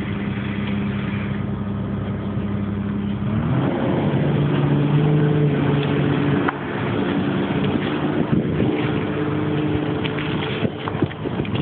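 Komatsu PC340LC excavator's diesel engine running steadily, then revving up about three seconds in and holding at a higher, louder speed. A few sharp knocks near the end.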